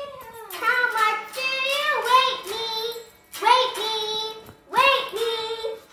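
A young girl singing, about six short phrases with held notes and small pitch slides.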